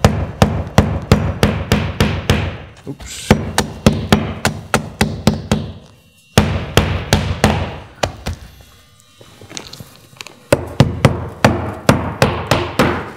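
Hammer driving roofing nails through an asphalt shingle, sharp strikes about three a second in several runs with short pauses between nails.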